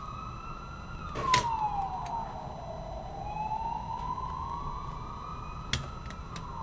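Siren wailing, one tone sweeping slowly down and up again in long rising and falling glides. Two sharp clicks sound over it, one about a second and a half in and one near the end.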